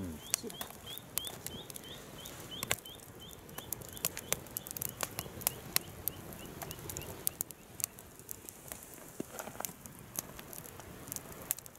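Wood fire burning in a fire stand, crackling with sharp, irregular pops over a soft hiss. A faint series of short high chirps, about two a second, fades out about halfway through.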